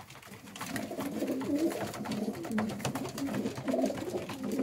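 Homing pigeons cooing, several overlapping voices starting about half a second in, with scattered light clicks of beaks pecking at grit.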